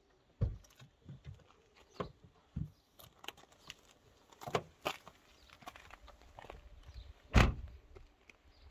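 Footsteps and handling sounds at a Peugeot 407 sedan: a series of separate knocks and clicks as the driver's door is opened, then one loud thump a little before the end.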